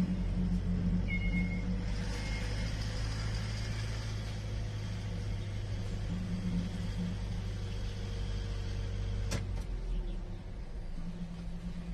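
Delivery truck's engine running steadily, heard from inside the cab while driving slowly. There is a sharp click about nine seconds in, after which the engine hum drops a little.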